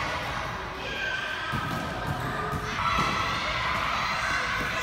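Basketballs being dribbled on a hardwood gym floor: a run of short, uneven thuds from several balls at once.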